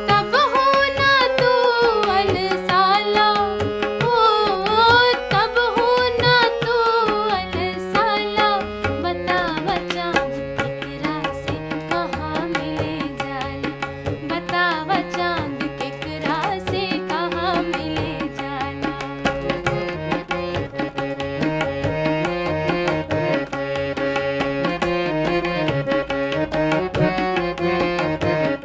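Bhojpuri folk song: a woman singing over harmonium and tabla for about the first nine seconds, then the harmonium carries the melody alone while the tabla keeps up fast, steady strokes.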